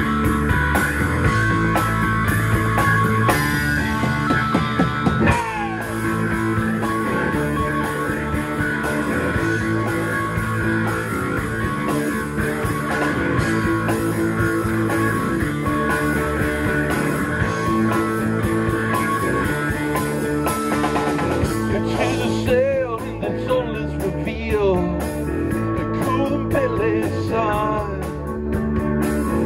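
Live rock band with electric guitar, bass, drums and keyboard playing an instrumental stretch of a song. About two-thirds of the way through, the sound turns duller and a lead line slides and wavers in pitch.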